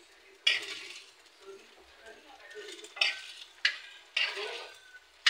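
A metal spoon scraping and knocking against a frying pan in several quick strokes as scrambled eggs are stirred and broken up, with oil sizzling faintly underneath.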